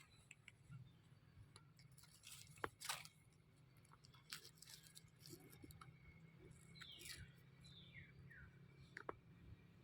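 Near silence: faint scattered clicks and a few short falling squeaks about seven to eight seconds in.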